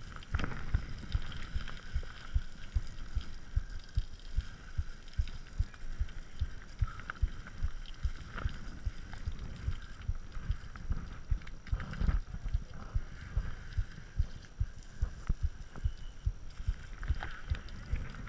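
Lapierre mountain bike being ridden, heard through an action camera mounted on its frame: a steady run of low knocks and thumps, about three a second, over a constant rolling hiss, with a few heavier jolts.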